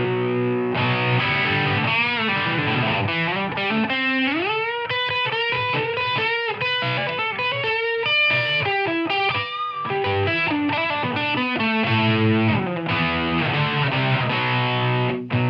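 1960s Hofner Galaxie Deluxe electric guitar played through distortion: strummed, ringing chords give way after a couple of seconds to a single-note lead line with string bends, then return to held chords near the end.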